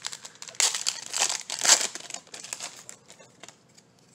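The foil wrapper of a Magic: The Gathering booster pack being torn open and crinkled, loudest in the first two seconds, then fading to a few faint clicks as the cards are handled.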